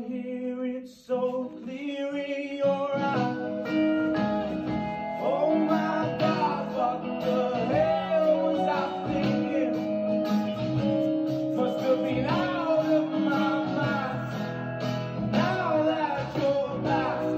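Background music: a song with guitar and singing, entering softly and fuller from about three seconds in.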